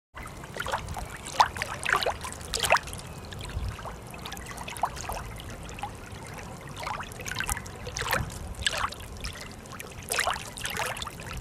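Water trickling and lapping, with irregular small plinks and splashes.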